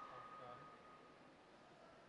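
Near silence: sports-hall room tone.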